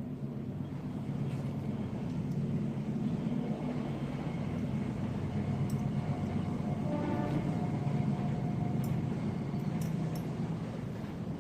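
A motor engine running steadily, its hum swelling through the middle and easing off near the end, with a few faint clicks.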